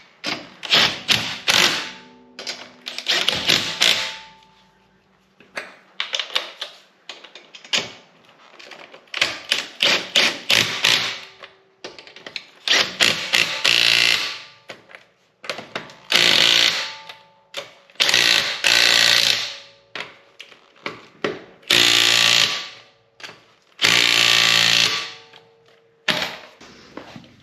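Wheel lug nuts being run down and snugged with a wrench: repeated bursts of rapid metallic clicking, about a second or so each, one nut after another.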